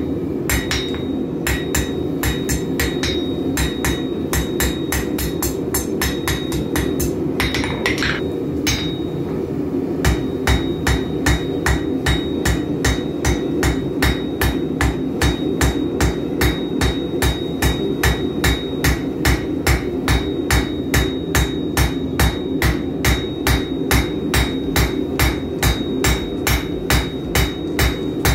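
Hand hammer striking a red-hot steel bar on an anvil while forging a fire poker: a steady run of blows about three a second, with a short break about eight seconds in, the blows landing heavier from about ten seconds on. A steady hum runs underneath.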